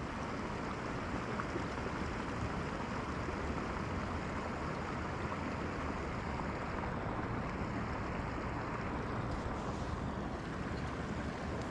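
Steady, even rushing noise without a break.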